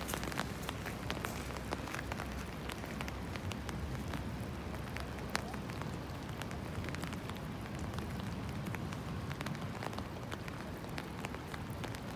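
Light rain falling, heard as irregular sharp ticks of drops landing close to the microphone over a steady low rumble.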